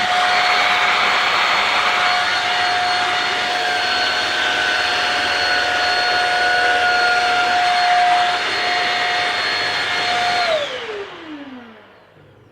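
Shark Rocket corded stick vacuum running with its mini motorized brush tool, a loud steady whine. About ten and a half seconds in it is switched off and the motor spins down, its pitch falling as it fades.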